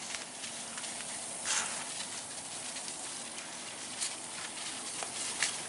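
Hand-pump garden sprayer misting leaves from its wand: a steady hiss with a few brief, louder spurts of spray.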